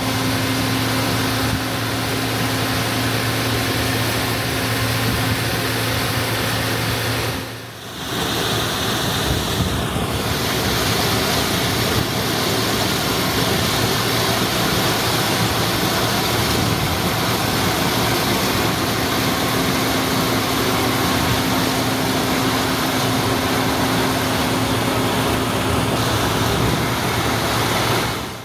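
Allis-Chalmers Gleaner F2 combine running while harvesting corn: its six-cylinder diesel engine together with the harvesting machinery, making a steady mechanical din. It dips briefly about eight seconds in.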